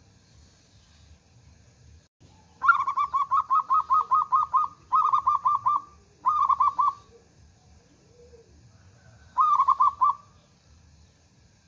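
Zebra dove (perkutut) cooing: a long string of quick, staccato notes starting about two and a half seconds in, broken into two shorter strings. A last short burst of the same notes follows near the end.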